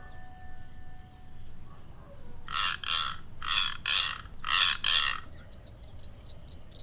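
A güiro scraped six times in three pairs of strokes, each a rasping sweep over its ridges. Near the end a cricket starts chirping, a fast, even train of high pulses, about five a second, made by scraping the file on one wing against the edge of the other.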